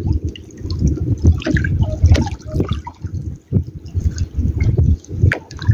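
Sea water sloshing and lapping against the hull of a small boat, in irregular surges with small splashes and drips.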